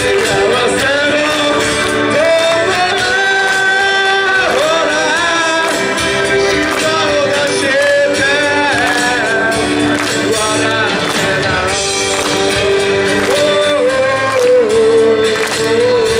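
A man singing live into a microphone while strumming an acoustic guitar, with some long held notes in the melody.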